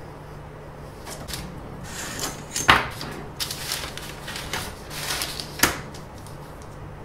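Paper rustling as a sheet, a flexible ruler and a steel ruler are handled on a workbench, with two sharp taps from the ruler against the bench, the louder one over a third of the way in and another about three-quarters through. A faint steady hum sits underneath.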